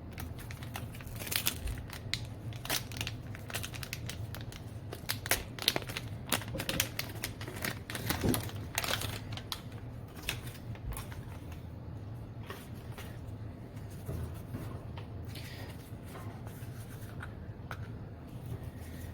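A small plastic bag holding a RAM chip being handled and opened, giving irregular crackles and clicks over a steady low hum.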